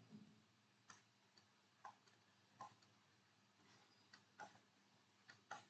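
Near silence broken by about eight faint, irregularly spaced clicks of a stylus tapping on a drawing tablet.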